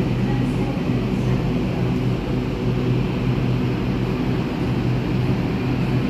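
Sydney electric suburban train at the platform, a steady low hum over a rumble.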